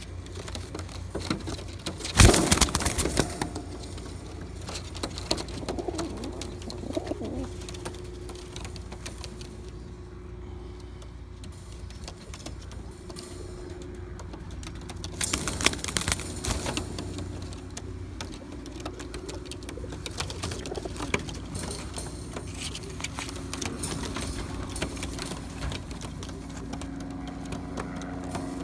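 Black tippler pigeons cooing in low, drawn-out coos. Two short loud clatters come about two seconds in and again about fifteen seconds in.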